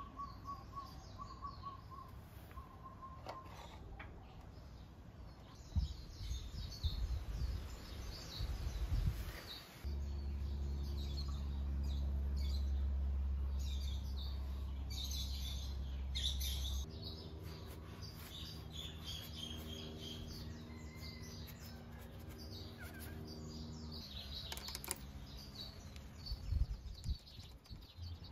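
Small birds chirping on and off. A low steady hum comes in about ten seconds in, changes near the middle and stops a few seconds later. There are a few scattered knocks and clicks.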